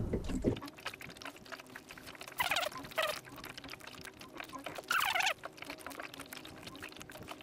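Filleting knife slicing along a mackerel's backbone on a plastic cutting board: soft scraping and small crackling clicks as the blade cuts over the bones, with two louder scraping strokes about two and a half and five seconds in.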